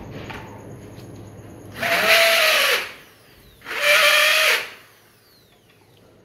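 Power drill run in two short bursts of about a second each, its motor pitch rising and falling with each burst. It is drilling mounting holes for an aluminium sliding glass door frame.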